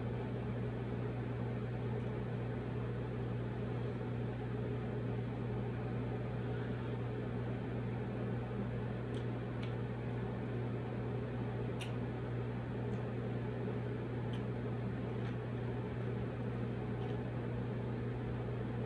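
Steady low machine hum of a fan or appliance running in the room, holding one even pitch throughout. A few faint, sharp clicks come through in the second half.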